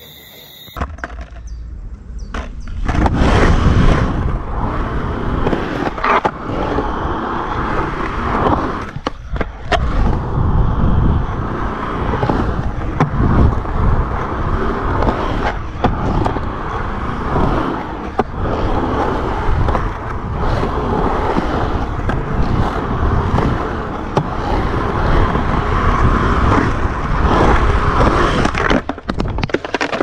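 Skateboard wheels rolling over a rough concrete bowl: a loud, steady rumble with occasional sharp clacks from the board, starting about two seconds in.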